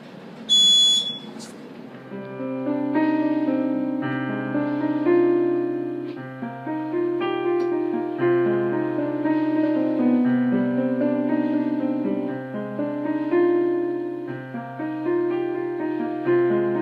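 One short, loud, high-pitched electronic beep from a Silent Knight 5208 fire alarm system sounding its trouble signal. From about two seconds in, piano music plays chords and notes.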